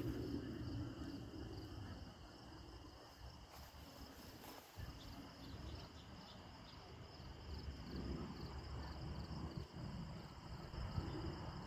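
Steady high-pitched insect chorus, an unbroken trilling, with a low rumble that swells near the start and again over the last few seconds.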